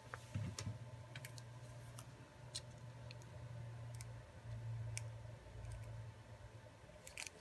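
Scattered light clicks and taps from hands handling the phone frame, the replacement LCD panel and a glue tube, about one every second, over a low steady hum.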